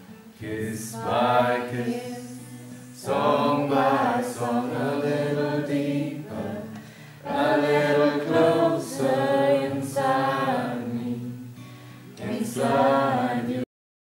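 Man singing a slow song in phrases of a few seconds to his own strummed acoustic guitar; the sound cuts off suddenly near the end.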